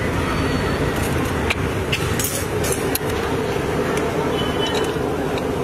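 Steady traffic-like background noise with scattered sharp clinks and taps of utensils as a street-food dish is mixed and served.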